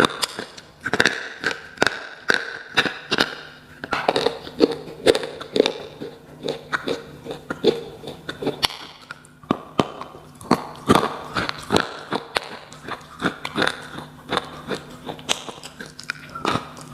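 Close-miked biting and chewing of slate pencils: a quick, irregular run of crisp, dry crunches and snaps.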